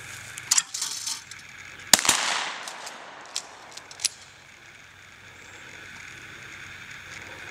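A single shot from an H&R 12-gauge pump-action shotgun about two seconds in, with a long echo fading over about a second. Smaller knocks come before it, and two sharp clicks follow a second or two later as the pump is worked.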